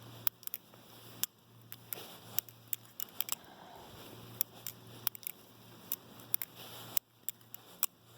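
Titanium-handled Benchmade balisong (butterfly knife) being flipped: a quick, irregular series of sharp metallic clicks and taps as the handles swing around the washer pivots and close on the blade, with a little tap of play in the blade.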